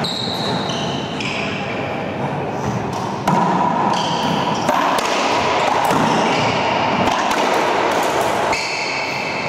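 A racquetball being bounced for the serve, then a rally: sharp smacks of racquets on the ball and the ball striking walls and floor, echoing around the enclosed court.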